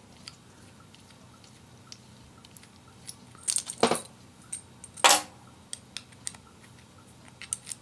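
Small steel parts of a Lee Enfield No 4 scope mount clicking and clinking in the hands as its thumb screw and spring are handled, with a few sharper metallic clinks between about three and a half and five seconds in.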